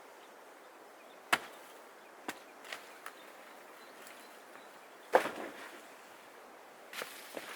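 Scattered sharp knocks on wood at irregular intervals: one clear hit a little over a second in, a few light taps, a louder strike about five seconds in, and a couple more near the end.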